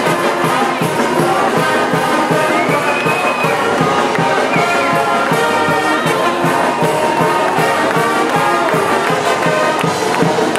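College pep band playing loudly, with trumpets, trombones, saxophones and sousaphones over a steady beat, and now and then a trumpet sliding in pitch.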